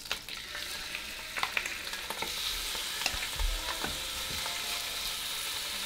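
Chicken pieces sizzling steadily in hot oil in a Dutch oven as they are browned, with a few light knocks as pieces are laid in the pot.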